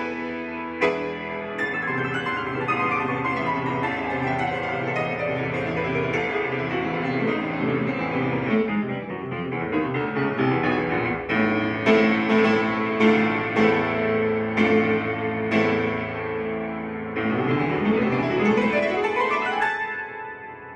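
Solo piano playing fast virtuoso passages: rapid falling runs over a repeated bass figure, then a series of loud struck chords, and a sweeping upward run near the end before the sound dies away.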